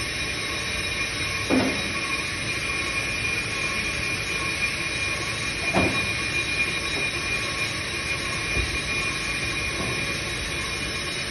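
On-car brake lathe turning a brake disc on the hub, its cutting tool skimming the disc face with a steady metallic whine and several high pitches. Two short falling chirps come about a second and a half in and again around six seconds. The disc is being resurfaced in place to cure a brake judder.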